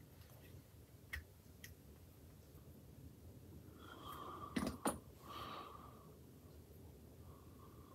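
Quiet handling of small plastic model-kit parts and a cement bottle: a light click about a second in, then two sharp clicks in quick succession a little past halfway, the loudest sounds, as the glue bottle is taken up and opened. Soft whistly breaths can be heard in between.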